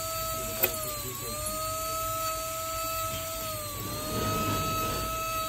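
Jeweller's rotary handpiece running with a steady high whine as its small bit cuts into a gold chain link. The pitch sags twice as the bit bites into the metal, with a rougher grinding stretch near the end. A single sharp click comes just under a second in.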